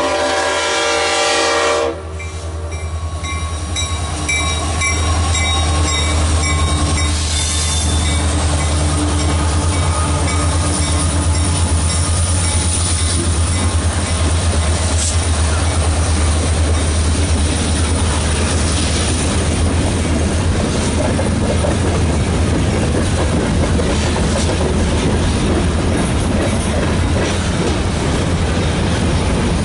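A diesel freight locomotive's horn sounds and cuts off about two seconds in, with a grade-crossing bell ringing for a few seconds after. Then the lead Norfolk Southern diesel locomotives pass close by with a heavy, steady engine rumble, and the wheels clatter along the rails as the train rolls through.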